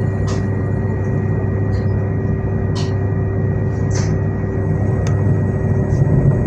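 SNCF Z 20500 electric multiple unit, motor car Z 20553, giving a steady electrical hum and rumble with several held tones. Brief faint clicks or squeaks come about once a second.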